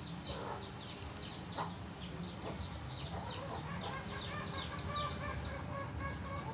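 Chickens clucking, with quick, high, falling chirps repeating several times a second and some longer, steadier calls from about halfway through.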